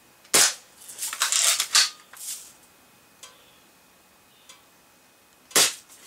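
Crosman Marlin Cowboy lever-action BB rifle firing twice, each shot a sharp snap, about five seconds apart. A second after the first shot comes a run of metallic clacks as the lever is worked to cock it again.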